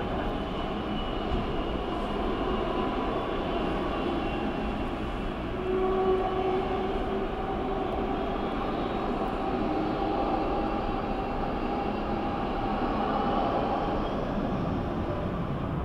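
Steady airport engine noise: a low rumble with several held jet-engine whines that drift slowly in pitch, one rising gradually near the end.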